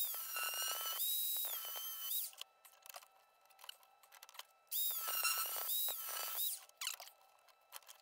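Handheld rotary tool with an abrasive cutoff wheel grinding a groove into a steel tap's threads: a high-pitched whine that drops in pitch as the wheel is pressed in and rises again as it eases off. It runs in two bursts, the first about two seconds long at the start and the second starting about five seconds in, with quieter pauses between.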